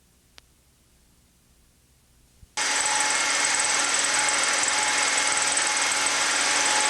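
Near silence broken by two faint clicks, then a steady mechanical noise starts abruptly about two and a half seconds in and runs on evenly.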